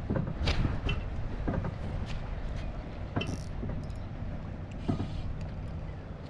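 Steady low rumble, with scattered light clicks and ticks of a spinning reel and rod being handled while jigging.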